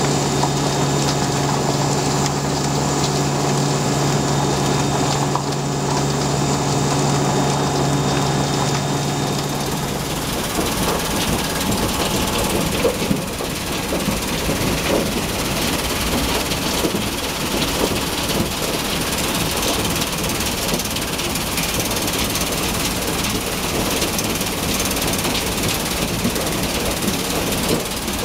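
Rockster R1100 mobile impact crusher plant running with a steady engine hum. About ten seconds in the sound changes to a rough, continuous rattle of gravel shaking over the wire mesh of the vibrating screen box.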